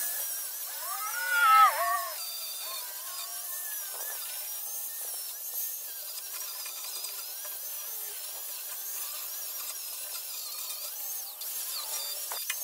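Angle grinder with an 80-grit flap disc grinding down welds on round steel tubing. A loud whine rises and falls about a second in, then the grinder runs on with a high whine that wavers in pitch as it bears on the metal.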